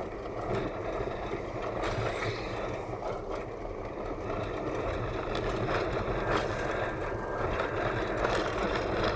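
Car engine and road noise heard from inside the cabin while driving: a steady rumble with light rattles.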